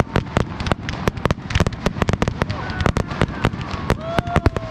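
Fireworks display going off in a dense, irregular barrage of bangs and crackling pops, many each second.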